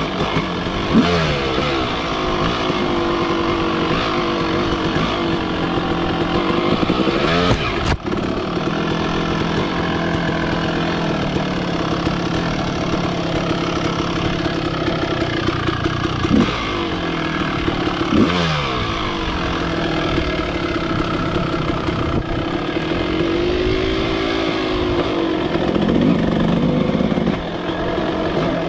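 Two-stroke dirt bike engine, a 2022 Husqvarna TE150i, running under load on a trail ride, revving up and easing off again and again as it goes through the gears.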